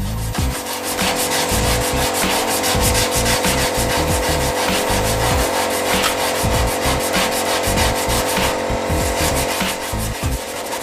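Hand sanding of a Vespa LX's steel body panel: sandpaper on a block rubbed rapidly back and forth along the panel's curved edge in quick rasping strokes, smoothing the metal after the dents have been hammered out.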